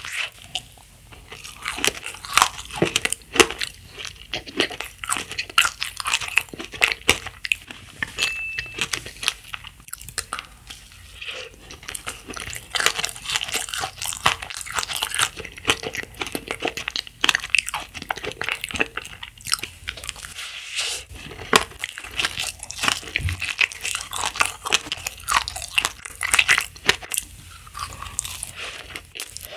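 Close-miked eating of a red macaron: biting through the shell and chewing, with many small crisp clicks and crackles in quick succession.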